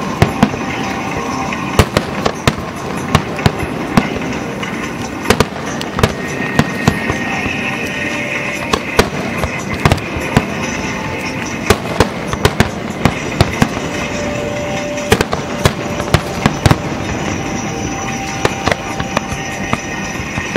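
Aerial fireworks shells bursting: a rapid, irregular string of sharp bangs, two or three a second, over a steady hiss.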